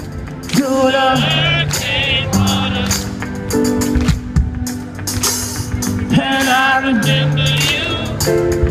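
Live band performing through the stage sound system, heard from within the crowd: a singer holding wavering notes over sustained bass notes and steady drum hits.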